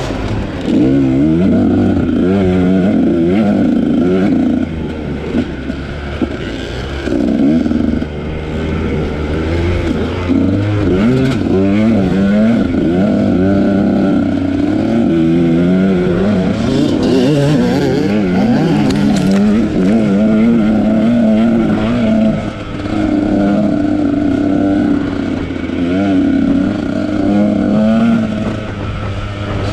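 Husqvarna TE300i two-stroke enduro motorcycle ridden hard off-road, its engine revving up and down without a break, the pitch climbing and dropping again and again with the throttle.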